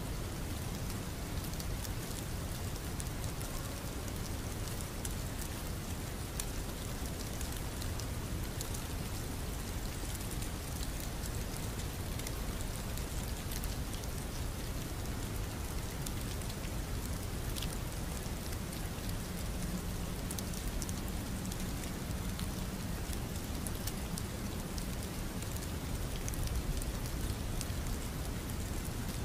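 Steady rain ambience: an even hiss of rainfall with scattered drop ticks, unchanging throughout.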